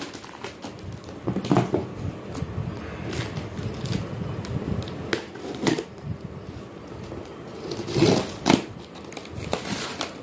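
Handling noise from a fishing rod being taken out and handled: irregular rustling, clicks and light knocks, a few of them louder.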